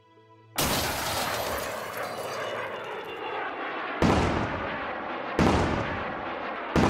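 Four loud booming impact sound effects, each starting suddenly and dying away over a second or more: the first about half a second in, then about four seconds in, a second and a half later, and again near the end.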